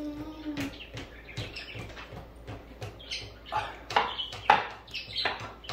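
People drinking from glasses, with gulps, breathy sighs and a few light clinks of glass on the stone counter. A brief held hum sounds at the start.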